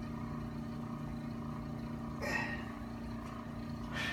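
A steady low mechanical hum holding one pitch, with one brief, higher sound a little over two seconds in.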